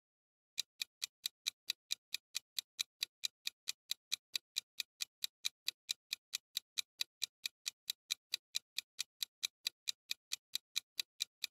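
Countdown-timer clock ticking sound effect: quick, even, sharp ticks, about four to five a second, starting about half a second in.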